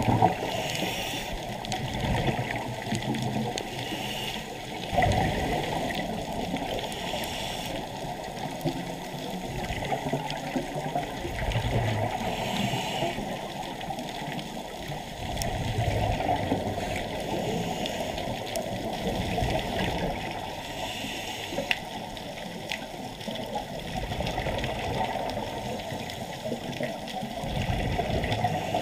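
Underwater scuba breathing: the regulator hissing on each inhale and exhaled bubbles rushing and gurgling, with a breath cycle every few seconds.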